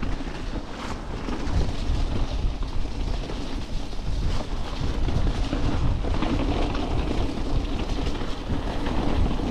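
Mountain bike descending a rough, wet stony track: a continuous rumble and clatter of tyres and frame over rocks, with wind buffeting the camera microphone. It gets somewhat louder about a second and a half in.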